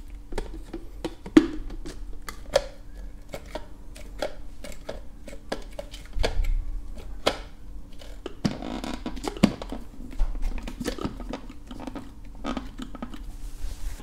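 Plastic parts of a stick vacuum's clear dust bin and red cyclone filter being handled and taken apart: many small irregular clicks and knocks of plastic on plastic, with a short rustle about halfway through.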